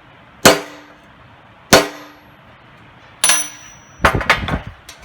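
Three sharp metallic hammer taps, about a second and a quarter apart, each ringing briefly, straightening the warped power valve cover of an Autolite 4100 carburetor. Near the end comes a quick run of lighter metal knocks.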